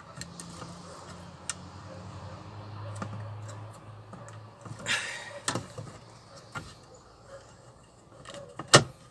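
Small clicks and knocks of a car door and its handle being handled, over a low hum in the first few seconds, with a rustle about five seconds in. A single sharp, loud latch-like click comes near the end.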